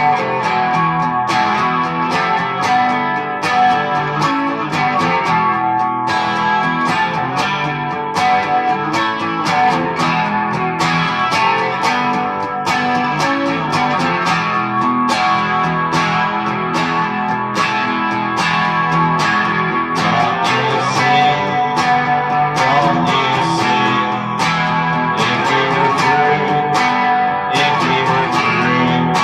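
Squier Telecaster electric guitar strumming chords in a steady, even rhythm, the opening of a song.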